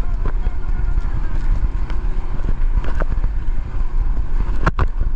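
Wind buffeting the microphone of a camera on an inflatable tube being towed fast across the water, a loud, steady low rumble, with a few sharp knocks as the tube bounces, the loudest just before the end.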